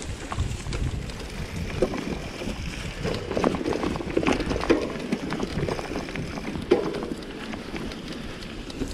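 Bicycle riding a bumpy dirt forest trail: wind on the microphone and tyre rumble, with the bike rattling and knocking over bumps, busiest a few seconds in and one sharp knock near the end.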